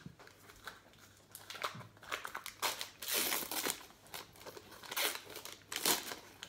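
Gift wrapping paper crinkling and rustling in irregular bursts as a present is unwrapped by hand, loudest about three seconds in and again near the end.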